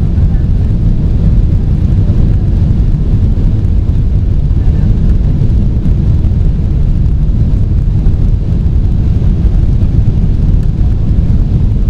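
Steady low cabin noise of a Boeing 777-300ER in flight on approach: the rumble of its GE90 engines and the airflow over the fuselage, heard from inside the cabin, with no changes.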